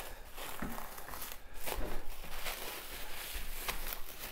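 Thin clear plastic bag crinkling and rustling in irregular crackles as gloved hands pull it off a raw pork shoulder.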